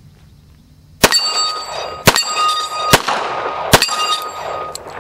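Four shots from a Ruger SR1911 .45 ACP pistol, about a second apart, the first about a second in. Each is followed by a ringing clang from a steel plate target being hit, which fades before the next shot.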